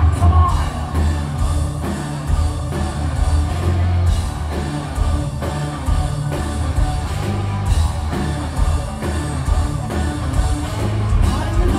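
Live progressive metal band playing, heard from within the crowd: guitars, bass and drums with singing, the low end heavy and boomy.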